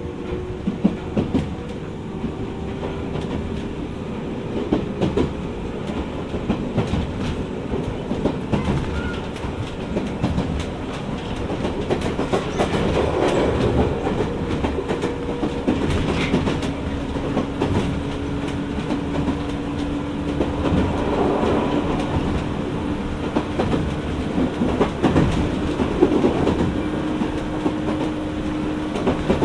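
Jomo Electric Railway 700-series electric train (ex-Keio 3000 series) running between stations, heard inside the car: a steady rumble with a drawn-out motor and gear whine, and wheels clacking over rail joints.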